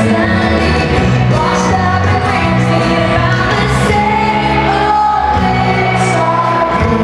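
Live concert music: a female lead singer with a band, in a large arena.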